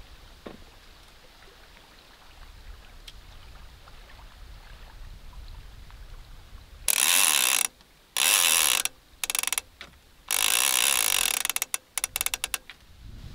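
Fly reel's click-and-pawl drag ratcheting as its spool is spun, in a series of buzzing bursts starting about seven seconds in. Two are about a second long, a few are brief, and quick short stutters come near the end.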